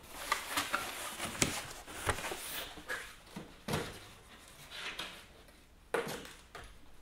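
A few scattered light knocks and rustles of cardboard boxes being handled and set down.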